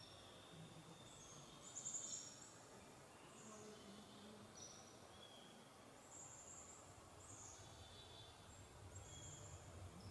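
Near-silent outdoor ambience: a faint steady hiss with scattered short, high-pitched chirps throughout, slightly louder for a moment about two seconds in.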